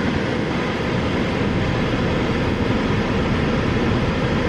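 Car air-conditioning fan blowing hard, a steady rush of air in the cabin of a car idling in park.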